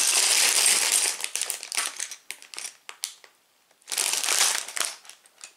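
Clear plastic bags of Lego pieces crinkling as they are handled and held up, in two spells: a long one at the start and a shorter one about four seconds in, with scattered crackles between.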